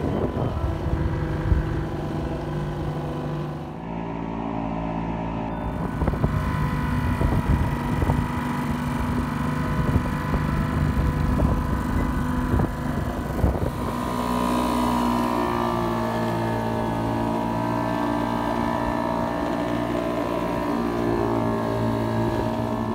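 Small outboard motor running steadily as it drives a wooden dinghy through the water. Its engine note shifts abruptly about 4 and 14 seconds in.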